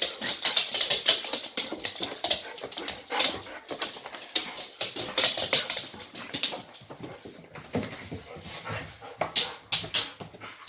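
A pet dog right at the microphone: a fast, irregular run of clicks, snuffles and rustles, thinning out after about six seconds.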